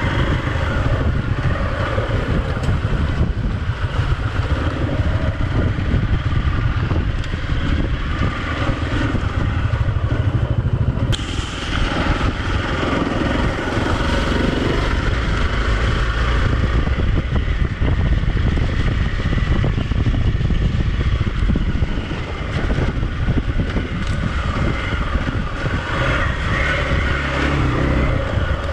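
Hero Xpulse 200 motorcycle's single-cylinder engine running steadily while riding an off-road trail.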